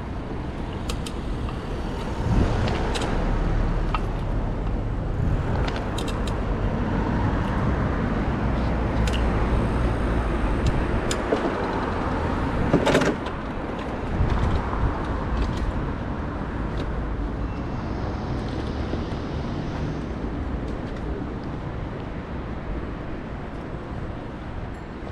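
City street traffic, with a motor vehicle's engine running close by for the first half. A single sharp clack comes about thirteen seconds in, and then the engine hum drops away, leaving a lower traffic rumble.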